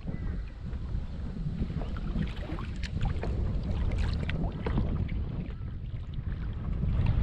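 Choppy water lapping and splashing against a kayak's hull, in many small, sharp splashes, with wind buffeting the microphone as a low rumble that grows louder near the end.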